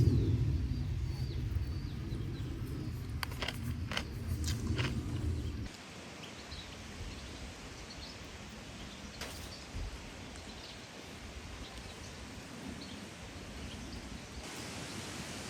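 Outdoor ambience: a low rumble with a few knocks cuts off suddenly about six seconds in, leaving a quiet hiss with faint, scattered bird chirps.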